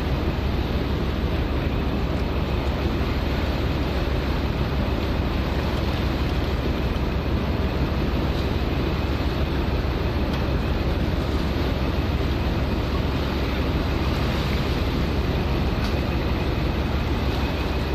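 Steady low rumble of a ship's engine under a constant wash of sea and wind noise.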